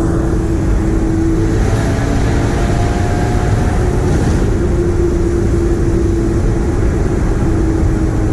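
Car driving at a steady cruise: a constant engine drone holding nearly one pitch over heavy road and tyre rumble.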